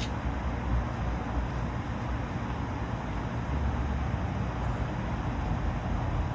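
52-inch Harbor Breeze Geneva ceiling fan with a 188x15mm motor running steadily: an even rush of moving air over a fluctuating low rumble.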